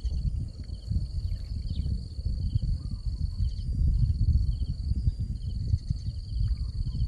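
Insects calling: a steady high-pitched buzz with a short trilled chirp repeating about three times every two seconds, over a constant irregular low rumble.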